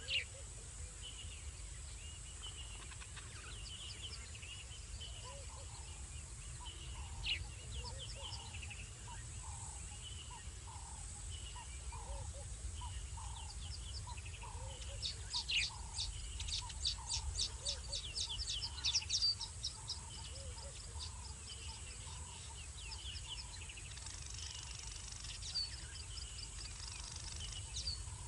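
Outdoor night ambience of wildlife calls: short chirps repeated about once a second over a steady high insect-like drone. A fast rattling trill is the loudest sound, about 15 to 19 seconds in.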